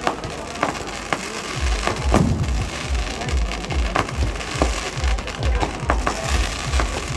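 Fireworks going off with scattered sharp bangs and crackling, over music with a steady deep beat, about three beats a second, that comes in about a second and a half in.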